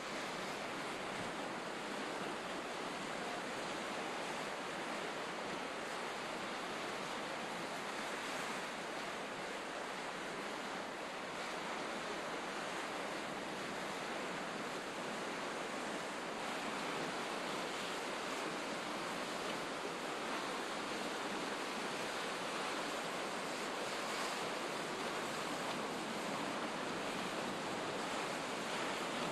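Steady rushing of wind and sea surf at the shoreline, an even noise with no single events in it.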